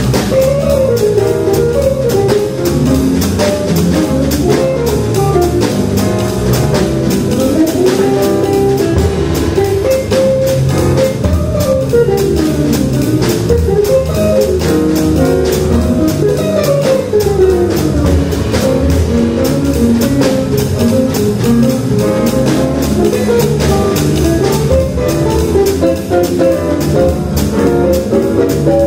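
Small jazz combo playing live: a guitar runs melodic lines up and down over a drum kit keeping time on the cymbals and piano accompaniment.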